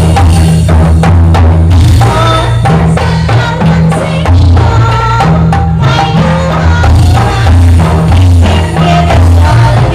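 Loud kuda lumping (jaranan) music: drums and other percussion keeping a steady beat over deep bass notes and pitched melody instruments.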